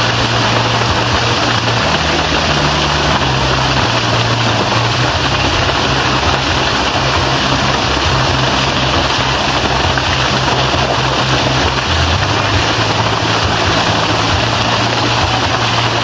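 Steady, loud rush of a narrow waterfall plunging onto rocks into a pool.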